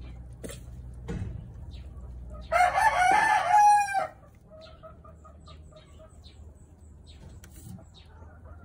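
A rooster crows once, a pitched call of about a second and a half starting about two and a half seconds in, over a low steady hum that stops as the crow begins.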